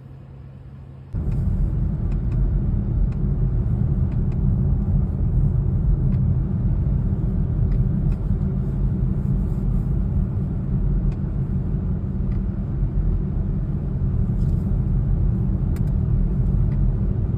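Low road rumble inside a moving Volvo's cabin, starting suddenly about a second in, with faint scattered clicks and knocks from the dashboard trim in the cold.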